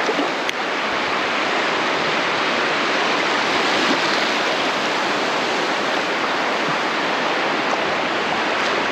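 Steady rushing wash of sea surf on the shore, with one faint click about half a second in.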